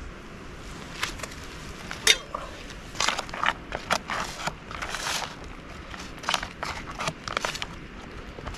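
Foil freeze-dried meal pouch crinkling and rustling as it is handled, in irregular crackles, the sharpest about two seconds in.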